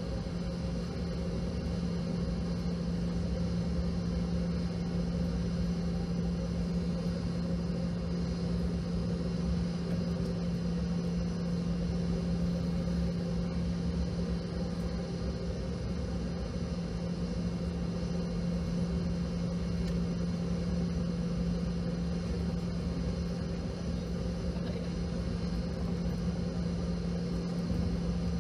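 Cabin noise inside a Boeing 717 taxiing: its rear-mounted Rolls-Royce BR715 turbofans run at low power, giving a steady low hum under an even rush of engine and cabin-air noise.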